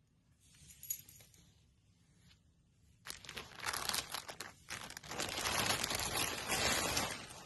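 Crinkling and rustling of handled material, faint at first and much louder from about three seconds in, with a short pause just before the five-second mark.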